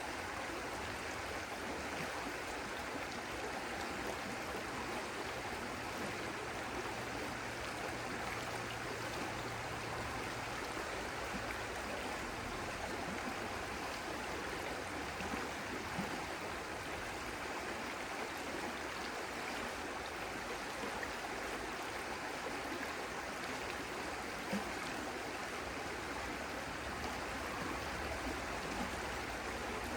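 Stream water flowing steadily, an even rushing babble, with a couple of faint brief clicks in the second half.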